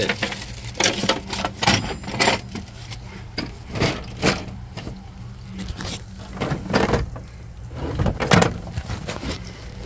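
Irregular knocks, clatter and rustling as tools and parts are moved about while rummaging through the plastic bins and metal shelving of a service van, over a low steady hum.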